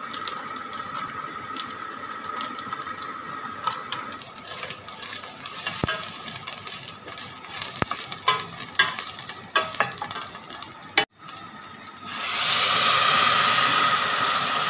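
Laksa paste frying in a stainless steel pan, sizzling while a spatula stirs it, with scattered clicks and scrapes of the spatula against the metal. After a brief break the sizzle comes back louder and steadier.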